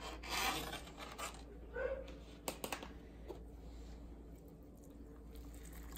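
Quiet kitchen handling sounds: a brief rustle near the start, then a few light clicks of metal tongs against a disposable aluminium pan about two and a half to three seconds in.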